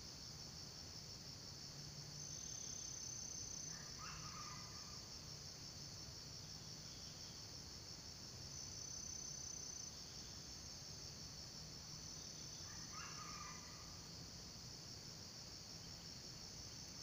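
Steady high-pitched insect chorus of crickets or cicadas. Two short calls, about nine seconds apart, stand out briefly above it.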